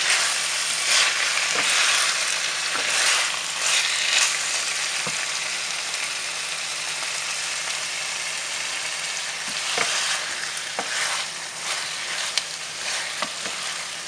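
Spice-coated boneless chicken sizzling as it dry-fries in a pan, with a spatula stirring it and now and then clicking and scraping against the pan. The sizzle swells in the first few seconds and again about ten seconds in.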